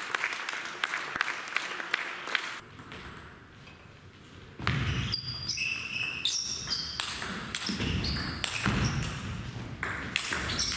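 Table tennis ball clicking repeatedly for the first two seconds or so. After a short lull, a rally starts about halfway through: the ball clicks off bats and table while sports shoes squeak briefly on the hall floor.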